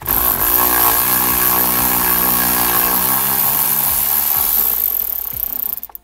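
Cordless electric ratchet running steadily for about six seconds on the steering wheel's center nut, starting and stopping abruptly.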